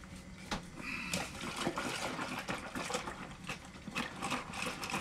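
Liquid sloshing and splashing, with fine crackles, over a steady low hum.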